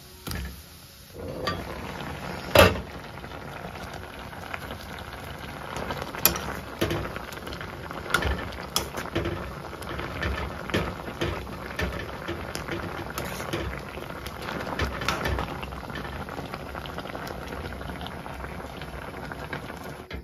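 A pot of salted water at a steady boil, bubbling with a dense hiss and many small pops and crackles. There is one sharp knock about two and a half seconds in.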